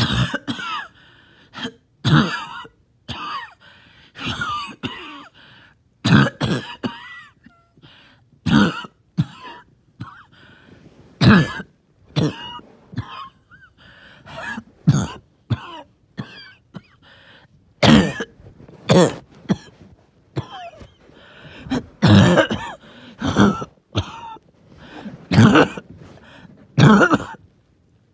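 A person's wheezy, phlegmy cough: repeated coughs and throat-clearing every second or two throughout, with wheezing between some of them.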